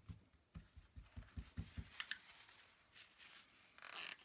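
A number 8 paintbrush being rinsed in a water jar, making quick soft thuds about five a second for the first two seconds, then a couple of clicks. Near the end there is a short rustle as the brush is dried off.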